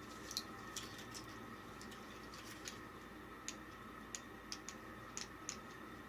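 Light clicks and taps of small hard parts being handled and set down while unpacking, about a dozen sharp ticks spread unevenly, over a faint steady hum.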